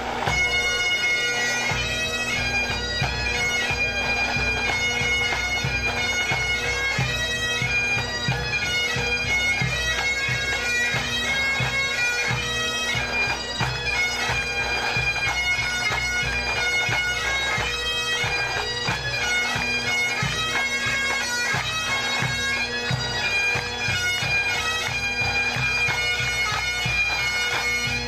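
A Scottish pipe band playing on the march: massed Highland bagpipes carry the melody over a steady drone, with snare drums and a bass drum keeping the beat.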